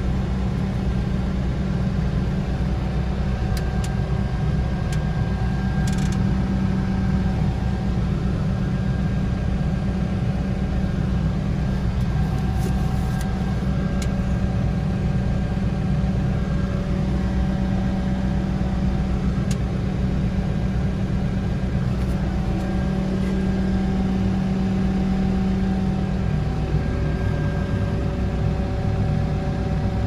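Case 580N backhoe's diesel engine idling steadily, heard from inside the cab. The engine note shifts slightly near the end, and a few faint clicks come early on.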